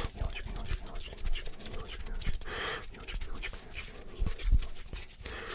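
Close-miked unintelligible whispering with hand sounds: many quick clicks and rubbing, a breathy stretch near the middle and a couple of soft low thumps about four seconds in.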